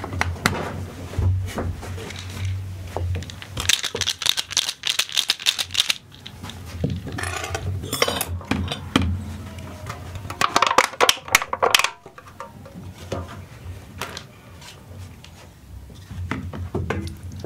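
Kitchen sounds recorded close up: a run of clattering, clicking and rattling, as of dishes and utensils being handled, in irregular bursts with short pauses.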